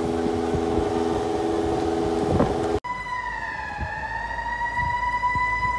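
A steady droning hum with noise, cut off abruptly a little under three seconds in. Then an emergency siren sounds a high, steady tone that sags once in pitch and comes back.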